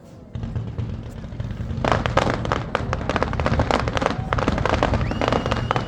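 New Year's Eve fireworks: a low rumble, then from about two seconds in a dense crackle of many small bangs, with a few whistles in the second half.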